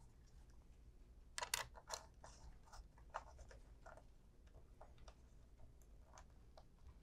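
Faint clicks and short scrapes of a small screwdriver and wire ends being worked into a plug-in AC transformer's screw terminals, the clearest cluster about one and a half seconds in.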